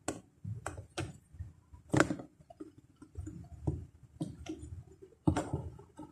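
Irregular sharp clicks and taps with soft handling noise between them, from slime-making supplies such as a glue bottle and containers being handled; the sharpest click comes about two seconds in.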